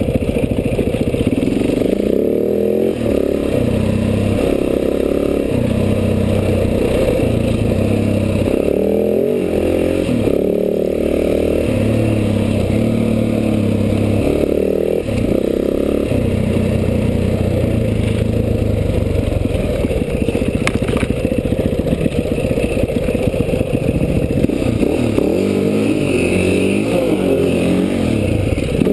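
Enduro dirt bike engine under way, its pitch rising and falling again and again as it accelerates and backs off.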